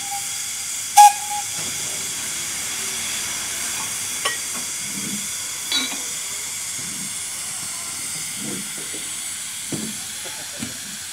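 Narrow-gauge steam locomotive standing and hissing steam steadily. Two sharp metallic clanks with a brief ring come from the coupling near the start, and a couple of lighter knocks follow later.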